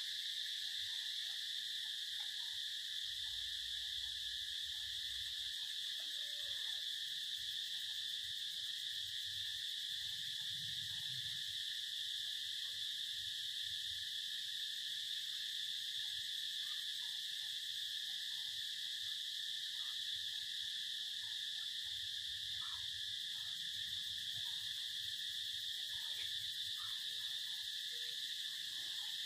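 A chorus of insects making a steady, high-pitched drone.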